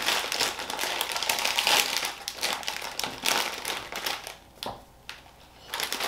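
Plastic crisp packet of Walkers Quavers crinkling as it is pulled open and handled: a dense crackle for the first three seconds or so, then a few sparser crinkles.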